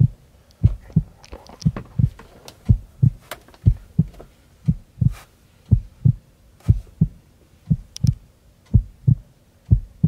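A heartbeat: a steady lub-dub double thump, about once a second.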